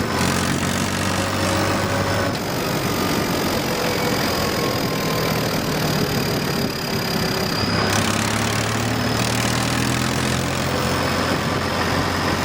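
Tractor engine running on the road with an aftermarket turbo whistle fitted in its exhaust silencer, giving a thin high whistle over the engine. The engine's deep steady note eases about two seconds in, while the whistle stands out, and comes back about eight seconds in.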